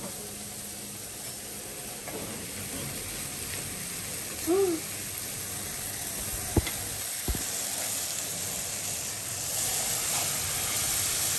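Chopped vegetables frying in a wok over a gas flame, a steady sizzle that grows louder near the end as cream is poured into the hot pan. Two short sharp knocks come about halfway through.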